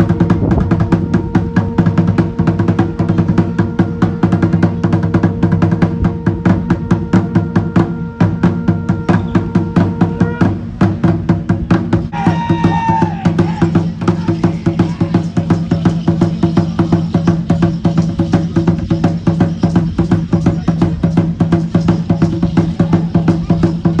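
Drum-driven music with a fast, even beat of about four strokes a second over a held drone tone that stops a little before halfway. A short, wavering high tone sounds just after the middle.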